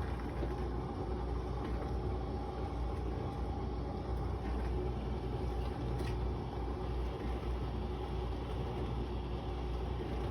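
Novete countertop portable dishwasher running with a steady hum and rumble, with a faint click about six seconds in.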